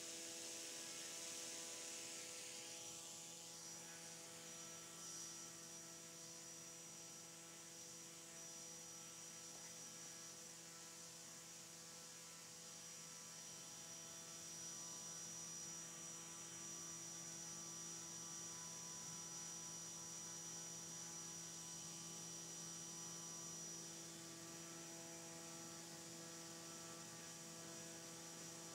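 Faint steady hum of a drone-scale propeller and its motor spinning at a constant throttle of about 5,000 rpm on a thrust test stand.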